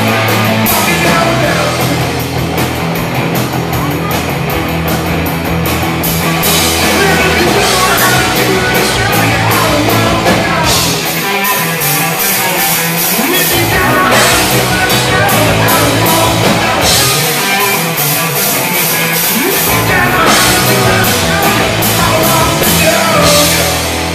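Live rock band playing: electric guitars over a drum kit, with repeated cymbal hits and a driving low end.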